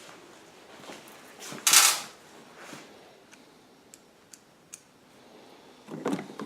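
Plastic generator panel and parts being handled: a short loud scraping rustle about two seconds in, a few light clicks, then a clatter near the end.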